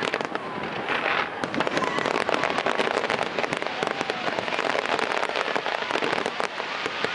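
Aerial fireworks display with dense, rapid crackling and popping, like crackle shells going off one on another, and a brief hissing burst about a second in.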